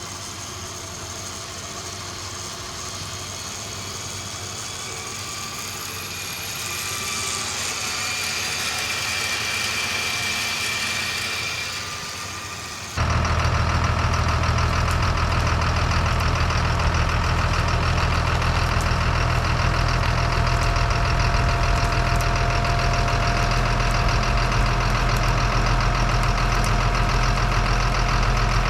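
Truck engine idling. For the first half it is quieter, with a faint whine that swells and fades, then it cuts suddenly to a loud, steady low idle close by that runs on unchanged.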